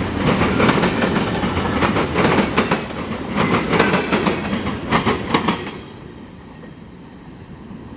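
Freight train cars rolling past, wheels clicking over rail joints. The end of the train passes about six seconds in and the noise drops away sharply.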